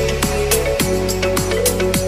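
Background music with a steady beat, held tones, and low bass notes that slide downward.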